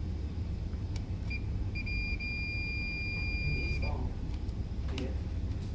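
Multimeter continuity beeper on the iron's cord: a short blip, then a steady high beep held for about two seconds, signalling that the lead under test is making contact. A few light clicks from the test probes and clips.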